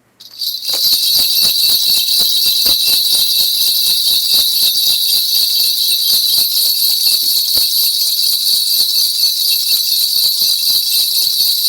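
A cluster of shaman's ritual bells shaken rapidly and without a break, giving a dense jingling with many small irregular clicks. It starts just after the beginning and goes on steadily, as in a shaman's spirit divination before a reading.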